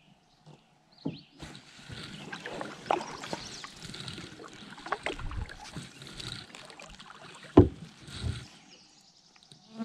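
Canoe paddling: water splashing and dripping off the paddle blade through the strokes, with several sharp knocks of the wooden paddle against the canoe, the loudest a couple of seconds before the end.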